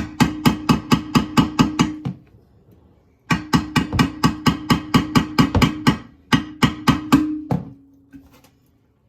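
Hammer tapping rapidly at a rusted toilet flange bolt that has been half cut through with a hacksaw blade, trying to snap it off. The strikes come about five a second with a ringing tone under them, in two runs with a short pause about two seconds in.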